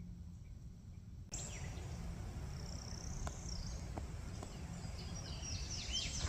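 Outdoor ambience: a steady low rumble with birds chirping. The brighter higher sounds come in suddenly about a second in, and a quick run of descending bird chirps comes near the end.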